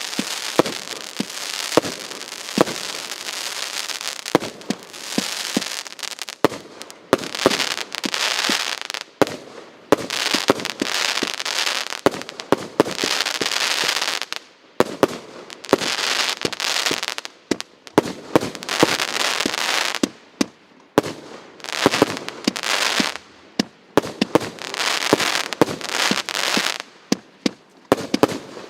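A firework cake firing shot after shot: sharp launch bangs in rapid clusters with short pauses between them, each followed by a crackling hiss from the bursting effects.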